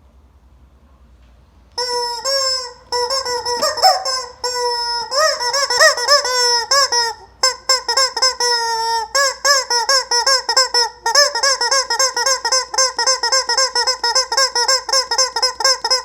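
Rubber chicken squeeze toy squawking in long, loud, wavering honks with quick up-and-down swoops, broken by a few short gaps; it starts about two seconds in after a near-quiet start.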